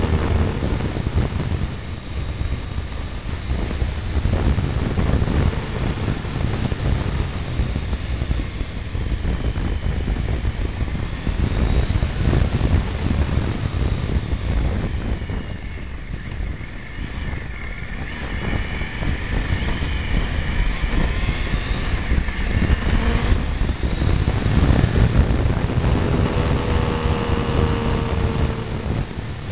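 Triumph Tiger 955i's three-cylinder engine running under way, its pitch rising and falling through the bends, heard from a mirror-mounted camera with heavy wind buffeting on the microphone.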